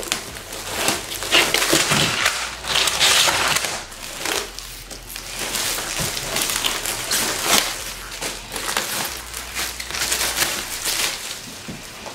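Thin plastic bag wrapping crinkling and rustling in irregular bursts as hands pull plastic shoe-box panels out of it.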